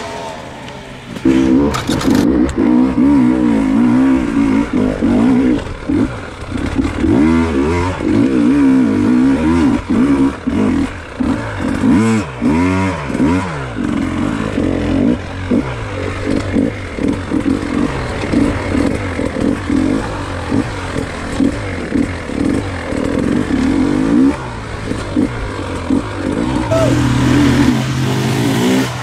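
Off-road motorcycle engine revving up and down again and again, the throttle opened and closed in quick bursts, loud throughout.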